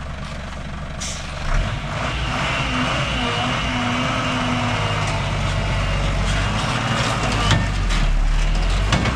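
Heavy vehicle engine running close by with a steady low hum that grows louder, and a short hiss about seven and a half seconds in.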